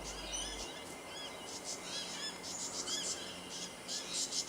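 Bushland birdsong: a bird gives short, repeated arched chirps, with higher, rapid insect chirping mixed in.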